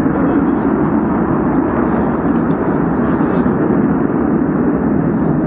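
Natural gas burning from a ruptured pipeline: a loud, steady rushing noise with no breaks.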